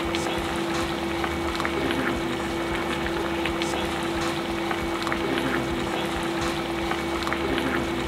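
Chicken and vegetables simmering in a seasoned liquid in a frying pan on a gas stove, stirred with a wooden spatula that gives light taps and scrapes against the pan, over a steady hum.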